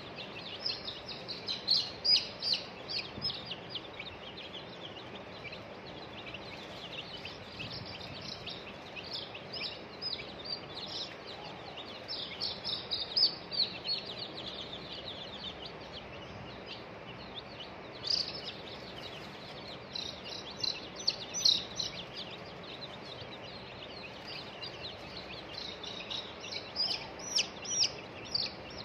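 Baby chicks peeping: many short, high, falling peeps that come in bursts with lulls between, over steady background noise.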